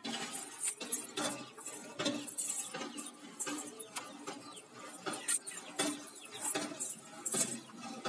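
Small bells on a toddler's silver anklets jingling in short, irregular shakes, roughly one or two a second, as she climbs steps on hands and feet.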